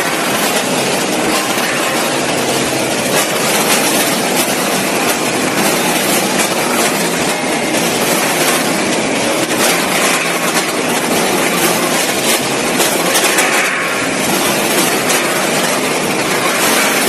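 Multihead combination weigher running with frozen chicken legs. The hard frozen pieces make a steady, dense clatter as they drop onto and slide across the stainless steel cone and feeder pans, over continuous machine noise.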